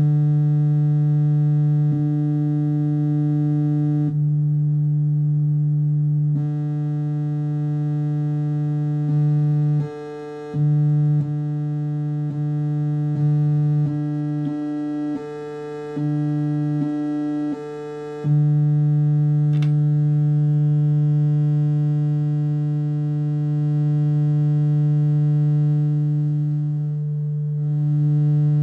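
Wavetable oscillator output from a homemade DAC/RAM/ADC module, a steady low electronic tone at about 148 Hz. Its timbre changes several times as different wavetables (sawtooth, sine-like and ramp shapes) are switched in, with a run of quick switches and brief level drops through the middle, then holds steady.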